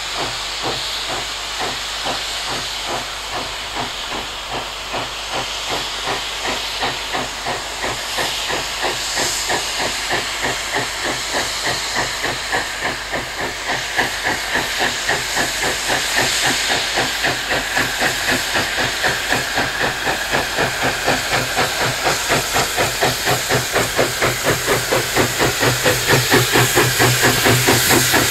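Steam locomotive working under steam with a steady, even beat of exhaust chuffs over a constant hiss, growing louder as it approaches.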